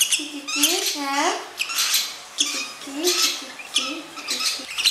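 Young lovebird chicks giving raspy begging squawks, about two a second.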